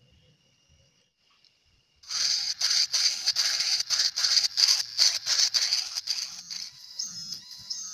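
Handheld mini grinder with a sanding drum bit grinding the clear plastic body of a gas lighter. It starts about two seconds in as a rough grinding that comes in uneven surges, then drops to a lower level near the end.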